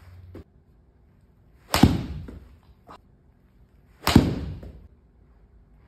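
Two sharp golf shots about two seconds apart: a golf club striking a ball off the hitting mat, with the ball smacking into the simulator's impact screen, each strike trailing off briefly in the bay. The second strike is the louder.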